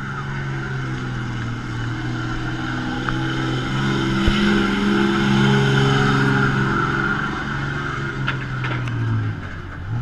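Dodge Mega Cab dually pickup's Cummins straight-six turbodiesel working hard under load as it pulls a weight-transfer sled. The engine note climbs and grows louder about four seconds in, then drops in pitch near the end as the pull winds down.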